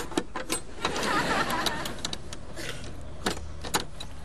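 Metal clicks and rattles of a padlock and sliding bolt being unfastened on a car door, with a short scraping rustle about a second in and two sharp clicks near the end. A low steady hum runs underneath.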